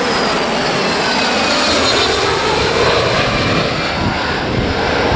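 Airliner's engines running loud as it passes close by, their whine slowly falling in pitch.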